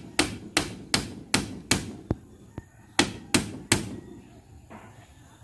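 Hammer driving nails, fixing a bamboo lattice panel into a window frame. There are five steady strikes, about two and a half a second, then a short pause and three more.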